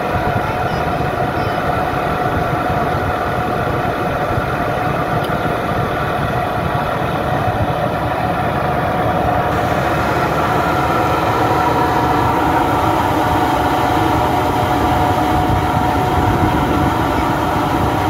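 Tractor engine running steadily at idle, with a steady whine over it that grows a little louder about two-thirds of the way through.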